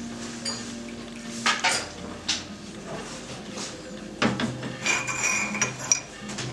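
Yixing clay teapot being handled: a few light knocks and clinks of the clay, then about a second of ringing near the end.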